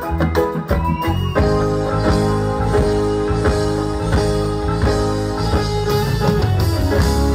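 Band music with guitar: a quick run of plucked notes in the first second or so, then sustained chords over a steady beat.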